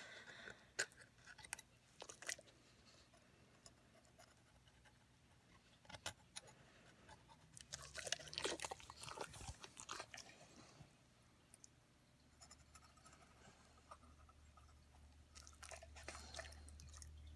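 Faint, scattered clicks and scrapes of a hand-held metal dental scaler working tartar off a dog's teeth, with a busier run of them about eight to ten seconds in.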